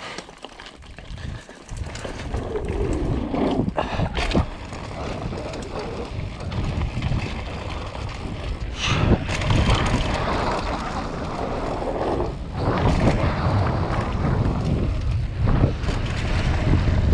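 Wind rushing over the microphone and mountain bike tyres rolling on a dirt jump trail during a fast downhill run, with a few sharp thuds along the way.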